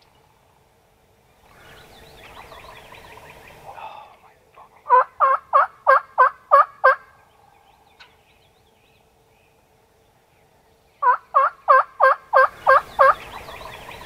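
Turkey yelping: two loud runs of about eight yelps each, about four a second, a few seconds apart, with softer scratchy sounds before and after.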